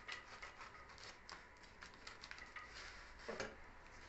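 Faint rustling and scratching of a plastic-wrapped parcel being slit and pulled open with a box cutter, with scattered small clicks and one louder knock a little past three seconds in.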